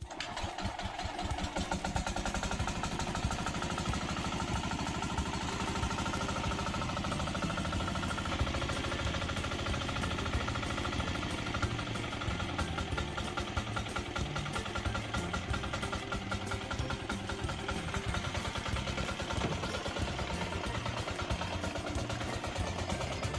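Small single-cylinder diesel engine on a walk-behind hand tractor, running steadily with a fast, even chugging beat.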